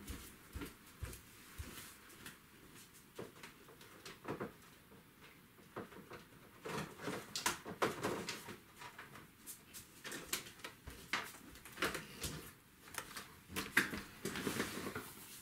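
Faint, scattered knocks, clacks and rustles of someone rummaging off to the side for a craft item, busier in the second half.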